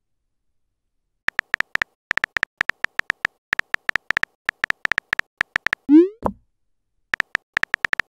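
Texting-app sound effects: quick irregular runs of keyboard tap clicks, a short rising bubble-like pop about six seconds in as a message is sent, then another run of key clicks.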